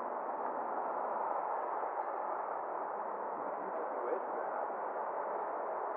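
Steady hiss of an air-band radio receiver, with no transmission on the channel between air traffic control calls.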